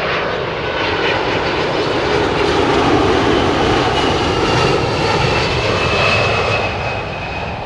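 Boeing 767 twin jet engines on landing approach, the jet noise building to a peak midway and then easing off, with a high fan whine sliding slowly down in pitch.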